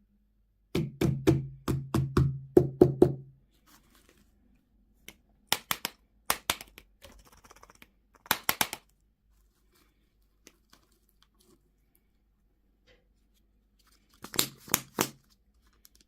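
Handling of hard plastic candy toy-box packaging: runs of quick taps and clicks with a low hollow hum under the loudest ones. A dense run comes about a second in, short clusters follow in the middle, and there is a last run near the end, with quiet gaps between.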